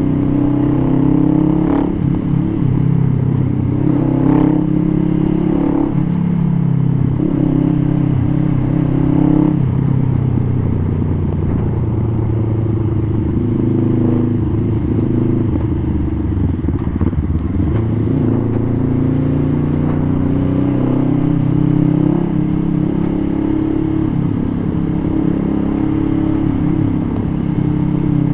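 Honda Rebel 500's 471 cc parallel-twin engine running through a custom full-system exhaust while riding, its pitch rising and dropping in steps several times as the revs change.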